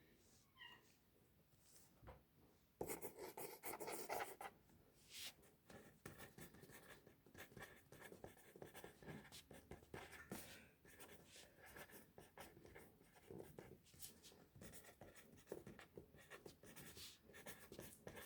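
Handwriting on paper: a writing tip scratching across the page in quick, short, irregular strokes, beginning about three seconds in after a quiet start.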